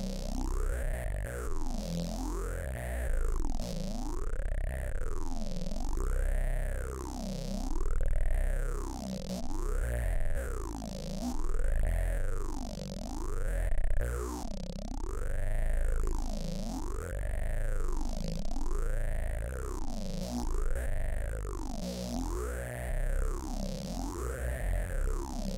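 Electronic noise patch from AudioMulch software: a resonant filter sweeps up and down in a steady cycle, about once every two seconds, over a deep low rumble.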